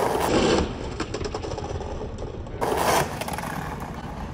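Skateboard wheels rolling over paving stones, clicking regularly as they cross the joints. About two and a half seconds in comes a louder half-second rush of rolling and scraping noise.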